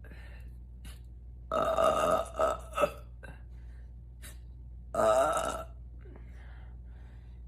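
A woman burping loudly: a long burp about a second and a half in, two short burps right after it, and another long burp about five seconds in.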